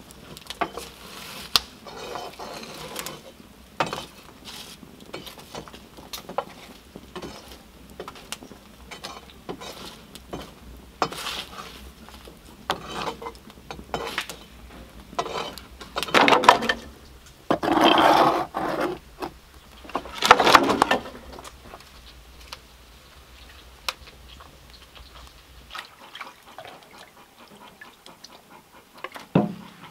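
Someone tending a wood-fired oven, making scattered knocks and clatter of wood and metal. A few louder rasping sounds, each about a second long, come around two-thirds of the way through.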